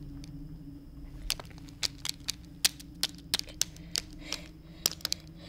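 Irregular sharp clicks and snaps, two or three a second, starting about a second in, over a low steady hum.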